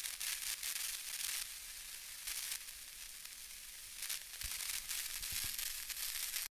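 Crackling static hiss, an electric fizzing sound effect: a high noise that flickers with crackles, with a few faint low thuds in the second half.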